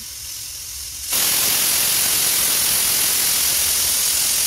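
Aluminium pressure cooker's weight valve venting steam in a steady hiss, which swells sharply louder about a second in: the cooker's whistle, the sign that it is at full pressure, counted to time the rice.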